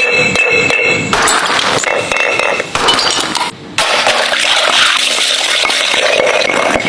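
Glass Corona Extra beer bottles being smashed and ground with a stone pestle in a stone mortar: dense crunching and clinking of breaking glass, with a short lull about halfway.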